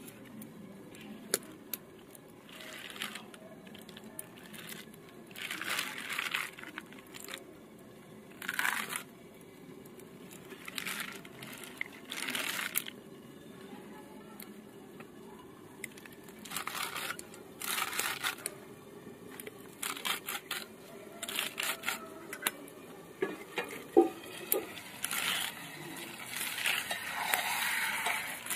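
Spinach being chopped on a boti, a curved blade fixed in a wooden base: bunches of leaves and stalks pushed through the blade give short crunching cuts, irregularly every second or two, with sharp clicks in between.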